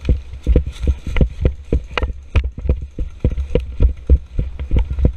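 Running footsteps over dry leaf litter and onto gravel: an even run of heavy thuds, about three to four a second, with each stride jolting the body-worn camera.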